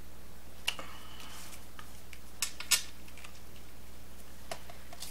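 A few scattered light clicks and taps as a stiff acetate sheet and a paper card are handled and pressed flat on a cutting mat. The sharpest click comes a little under three seconds in.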